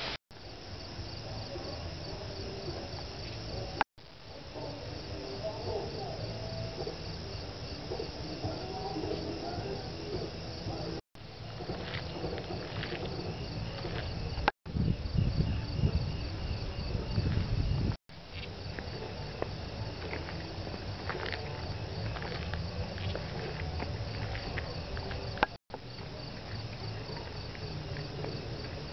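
Crickets chirping in a steady, high, pulsing drone over a low outdoor rumble that grows louder for a few seconds in the middle. The sound cuts out for an instant five times, where separate recordings are spliced together.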